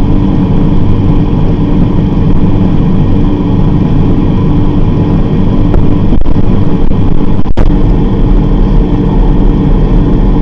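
Refrigerator's motor hum, heard loud and steady from inside the closed fridge, with one very brief dropout about seven and a half seconds in.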